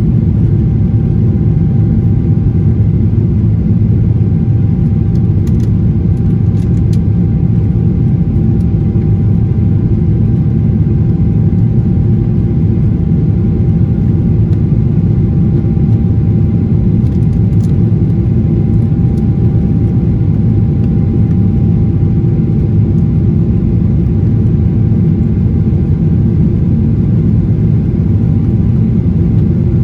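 Airplane engine noise: a loud, steady low rumble with a thin steady whine above it, unchanging throughout.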